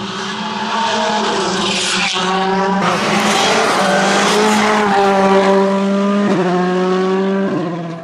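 World Rally Cars' turbocharged 1.6-litre four-cylinder engines at full throttle on tarmac, passing close by. Each engine note holds high and drops at each upshift, with several gear changes. The footage cuts from one car to the next about three seconds in.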